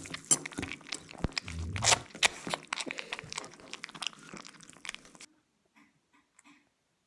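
Puppies crunching and chewing food: a dense run of crisp crunching clicks that stops abruptly about five seconds in.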